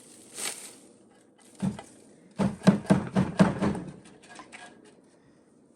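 A run of sharp knocks and clicks from objects being handled, loudest from about two and a half to four seconds in, after a single thump; then quiet room tone.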